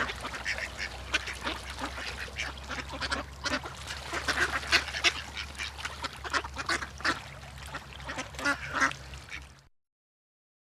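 Many birds calling at once in a dense run of short, overlapping calls over a low steady hum. The calls cut off suddenly near the end.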